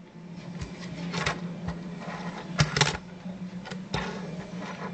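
Fingerboard (finger skateboard) popped and flipped by hand for a hardflip: sharp clicks and short clatters of the small deck and wheels hitting a hard surface, with a cluster about a second in and a louder one near the three-second mark.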